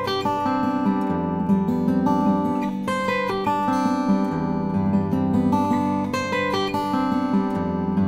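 Nightingale N400F 12-fret steel-string acoustic guitar, with exotic ebony back and sides, a sinker redwood top and 80/20 bronze strings, played fingerstyle: picked melody notes ring over sustained bass notes, the bass changing about every three seconds.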